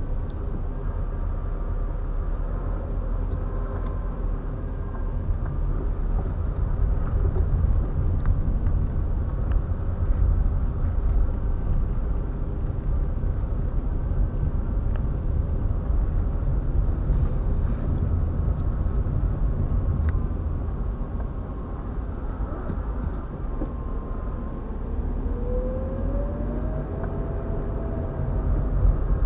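Steady low rumble of road and engine noise inside a moving car at highway speed, with a short rising tone near the end.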